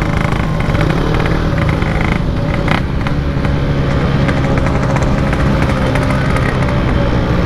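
Yamaha RX-King 135cc two-stroke single-cylinder engine running at a steady cruising speed while riding, through a Packing Power aftermarket exhaust, with one short knock about three seconds in.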